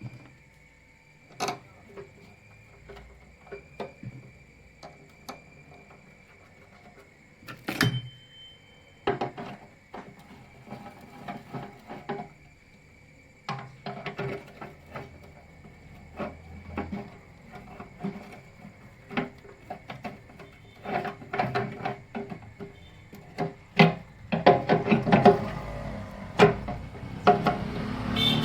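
Motorcycle fuel tap being fitted to the fuel tank by hand: scattered clicks, light knocks and rubbing of metal and plastic parts, with two sharper knocks about a third of the way in and busier clatter near the end.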